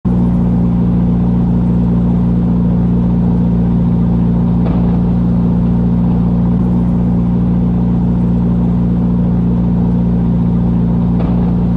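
Loud, steady low engine drone at an even pitch, with a couple of faint ticks.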